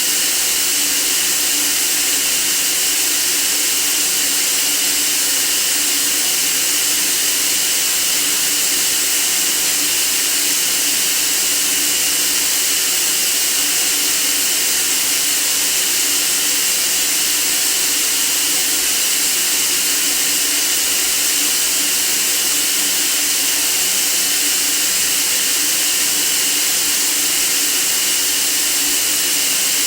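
Steady white noise: a bright, even hiss with little low end, unchanging in level.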